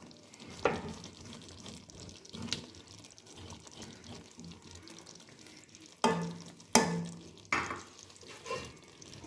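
Chicken karahi simmering gently on low heat in a metal karahi, a faint steady sizzle, with a few sharp taps and scrapes of a plastic spatula against the pan, the loudest about six to seven and a half seconds in.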